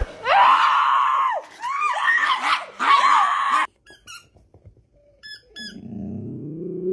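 Three loud, drawn-out screaming cries, then a few short squeaks of a dog's squeaky toy and a low groan from a boxer dog that rises steadily in pitch near the end.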